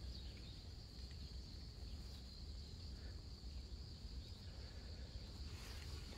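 Quiet field ambience: a steady high-pitched insect chirring, likely crickets, over a low rumble.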